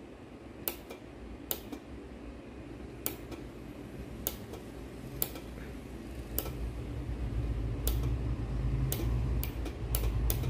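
Dental-chair 30 V DC solenoid valve clicking as its plunger pulls in each time power is touched to the coil leads: a string of sharp clicks, roughly one a second at first and quicker near the end. A low hum grows louder in the second half.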